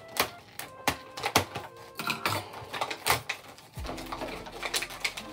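Cardboard packaging being handled and worked apart by hand: a string of irregular knocks, scrapes and rustles, with faint background music underneath.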